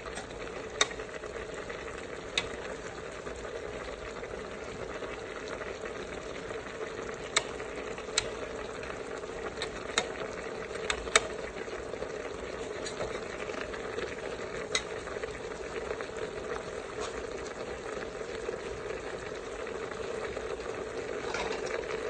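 Food sizzling steadily in a pot as a ladle stirs it, with a scattering of sharp clinks where the ladle strikes the pot.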